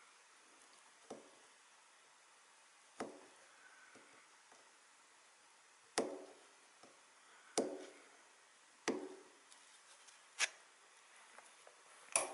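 Sharp clicks and knocks from small plastic clock-motor parts being handled and worked on a workbench, about seven of them at irregular intervals of one to two seconds, each with a short ring.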